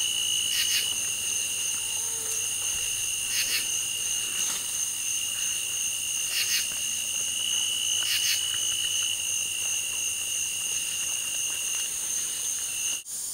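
Evening insect chorus: several steady high-pitched drones from insects such as katydids, crickets or cicadas, with a few short rasps every few seconds.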